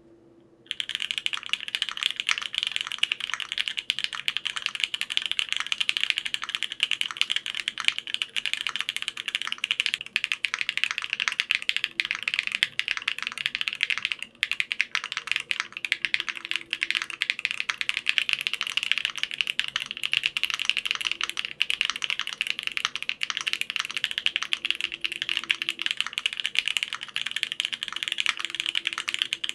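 Rapid, continuous typing on a mechanical keyboard with an aluminium plate, full foam and ABS double-shot keycaps, fitted with unlubed stock switches. The keystrokes start just under a second in and break off briefly about 14 seconds in.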